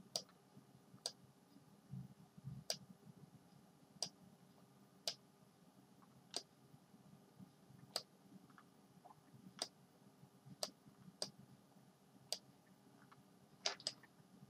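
Computer mouse clicks: about a dozen short, faint clicks at uneven spacing roughly a second apart, as spinner values are adjusted.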